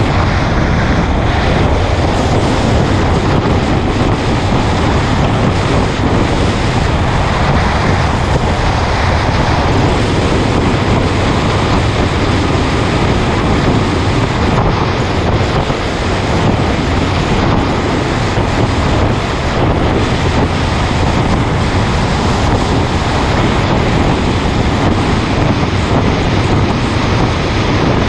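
Steady wind rush buffeting the microphone, mixed with the motorcycle's engine and tyre noise while cruising at speed on the highway.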